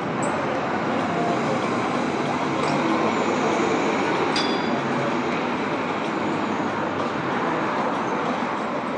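Steady city street traffic noise from passing cars, with a couple of brief high clinks.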